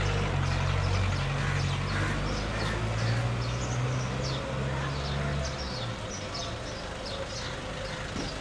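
Street ambience: a vehicle engine running with a low hum that cuts out about five and a half seconds in, under many short, high, falling chirps from birds.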